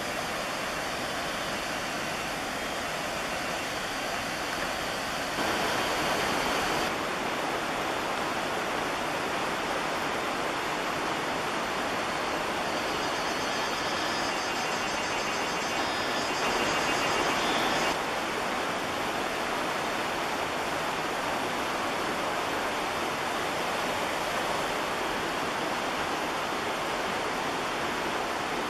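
Steady rushing noise with no distinct events, which shifts abruptly in level and tone a few times.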